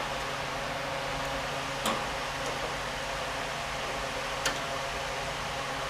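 Steady fan-like hum and hiss, with two light clicks, one about two seconds in and one about four and a half seconds in, typical of small metal parts or hand tools being handled.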